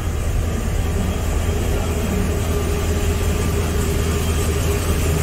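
A vehicle engine running with a steady low drone.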